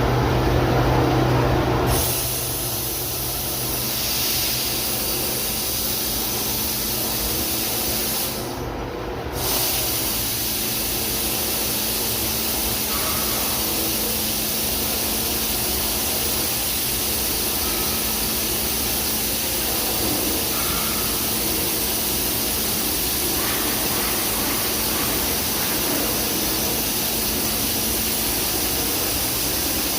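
Daito DNF-1050 CNC beam drill line running with a steady hiss. A low hum stops about two seconds in, and the hiss cuts out briefly around nine seconds in before coming back.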